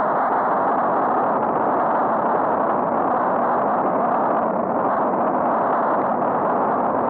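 Steady, even rushing noise of wind and road on a helmet camera's microphone while cycling, with no distinct events.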